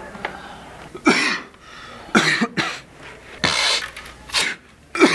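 A young man coughing repeatedly: about six harsh coughs, mouth uncovered, coming every second or so.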